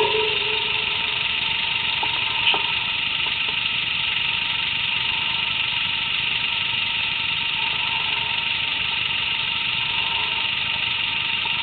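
An engine idling steadily, with a constant high whine over it; a faint click about two and a half seconds in.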